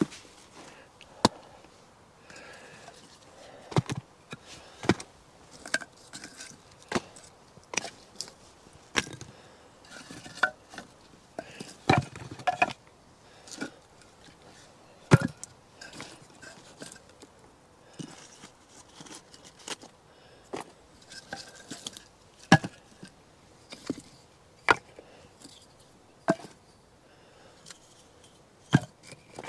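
Sticks of firewood knocking and clattering as they are handled and set down: sharp wooden knocks at irregular intervals, about one every second or two, with a quick cluster of several about twelve seconds in.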